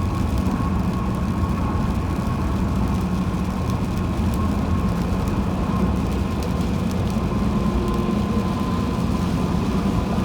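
Steady road and tyre noise of a car driving on a highway in the rain, with a faint steady hum throughout.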